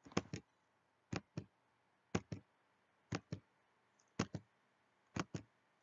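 Computer mouse button clicked six times, about once a second, each click a quick press-and-release pair.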